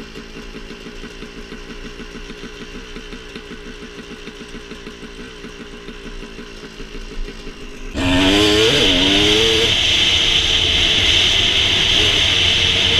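Dirt bike engine idling with a steady beat, then about eight seconds in the throttle opens and the bike pulls away, the engine revving up and down with loud wind rushing over the helmet-mounted microphone.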